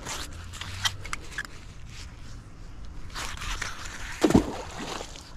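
Scraping and crunching handling noises as a muddy cast iron pipe pulled up by magnet fishing is cleaned off, with a few sharp clicks and one heavy thud about four seconds in.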